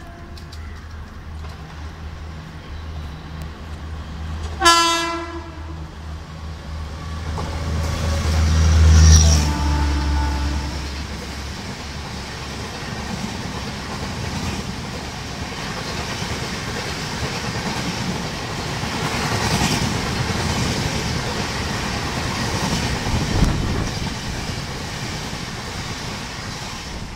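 Indian Railways express train passing close by. About five seconds in there is one short horn blast. The locomotive goes by loudest a few seconds later, and then the coaches roll past with a steady wheel-on-rail rumble and clatter.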